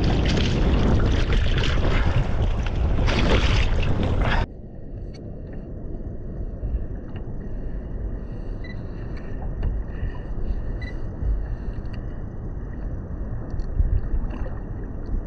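Loud splashing and wind buffeting as a fish is gaffed beside the kayak, cutting off abruptly about four seconds in to a quieter, steady low rush of wind and water around the kayak.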